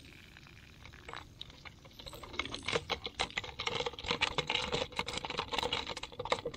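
Live shrimp jumping and flicking inside a trap, a rapid, irregular clicking and tapping that starts about two seconds in.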